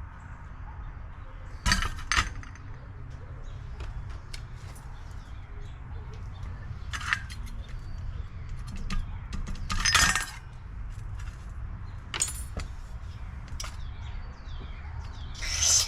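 Small metal carburetor parts clinking and tapping as a carburetor gummed up with stale gas is worked on and cleaned out. Several short, loud noisy bursts come about 2, 7, 10 and 12 seconds in, over a steady low hum.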